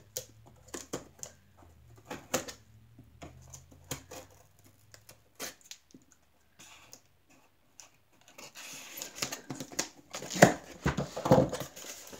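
A scissors blade drawn along the packing-tape seam of a cardboard box, giving scattered small clicks and scrapes. About eight seconds in, louder cardboard rustling and a few knocks as the box flaps are pulled open.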